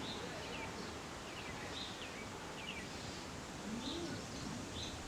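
Steady wind noise, with small birds chirping now and then and a brief low call about four seconds in.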